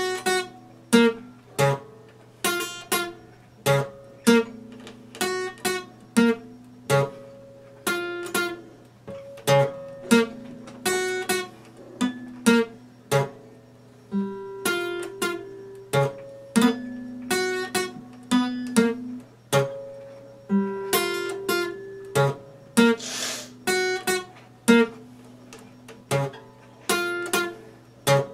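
Epiphone acoustic guitar played solo: chords and single notes plucked in a steady rhythm, each stroke ringing on.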